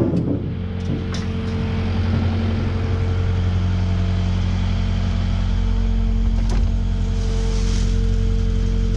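Kubota KX080-5 excavator's diesel engine running steadily, with a few faint clicks and a brief hiss about two-thirds through.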